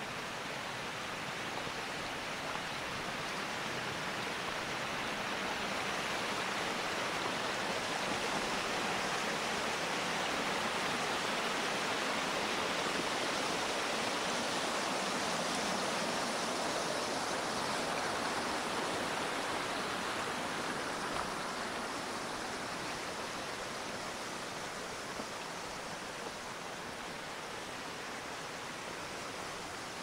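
The Taurach, a snowy mountain stream, rushing over its rocky bed: a steady noise of running water that swells to its loudest about halfway through, as the path crosses a footbridge over it, then eases off.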